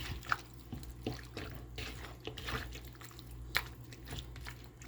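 Hands squeezing and working raw chicken in a wet marinade of vinegar and seasoning, giving irregular short squelches and drips.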